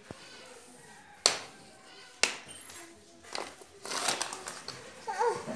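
A small plastic bottle knocked and pushed about on a stone floor: two sharp knocks about a second apart, then a quicker clatter of taps and scrapes. A short voice sound comes near the end.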